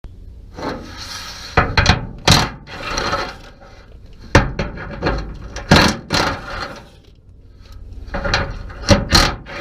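Hand tools knocking and scraping on a pickup tailgate's latch mechanism as it is taken apart: a run of sharp knocks with rubbing and scraping between them.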